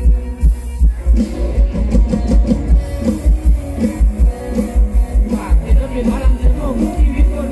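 Live mor lam band music over the stage sound system, with a heavy, steady bass beat.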